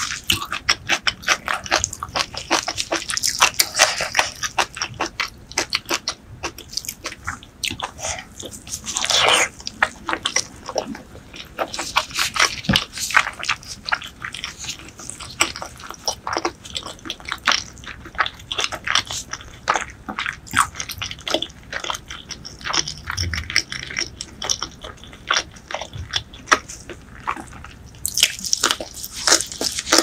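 Close-miked chewing of braised pork leg and leafy greens: a dense run of irregular mouth clicks and smacks with some crunching.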